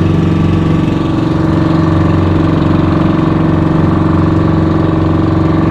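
Engine of a motorized outrigger fishing boat running at a steady pitch while under way, a constant even drone.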